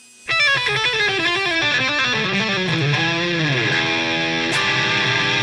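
Electric guitar intro music: a quick run of picked notes, then a note bent down in pitch about three seconds in, followed by held notes.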